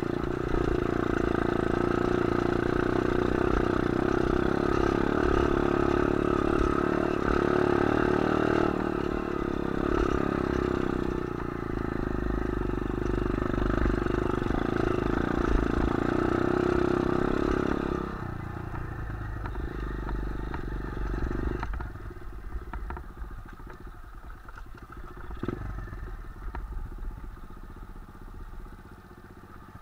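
A 125cc pit bike's single-cylinder four-stroke engine running steadily under throttle over a dirt trail, with the bike rattling over the rough ground. About two-thirds of the way in the revs drop as the bike slows, and the engine runs on more quietly at low revs through to the end.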